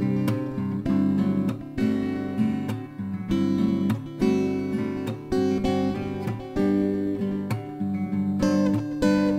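Background music: acoustic guitar playing plucked and strummed chords, the chord changing every half second or so.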